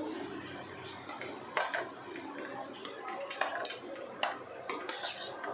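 Metal slotted spatula stirring thick carrot halwa in a nonstick kadhai, scraping and knocking irregularly against the pan.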